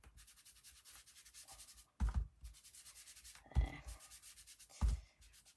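Foam ink blending tool scrubbed over kraft cardstock in quick, even rubbing strokes as Distress Ink is worked onto the card. Three low thumps break in about two, three and a half, and five seconds in.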